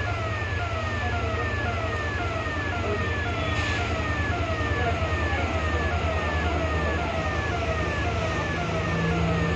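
An electronic warning siren repeating a short falling tone nearly twice a second, over a steady low engine rumble. A brief hiss cuts in about three and a half seconds in.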